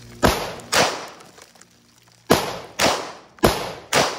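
Q Sugar Weasel 5.56 rifle firing green-tip rounds: sharp reports in three pairs, about half a second apart within each pair.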